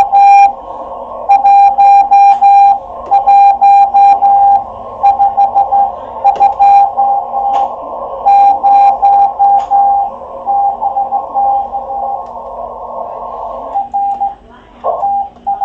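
Morse code (CW) signal from a ham radio receiver on the 30 m band: a single steady tone keyed on and off in dots and dashes, over the hiss of a narrow CW filter. About 14 s in the hiss drops away and short keyed tones follow as the operator sends with the key.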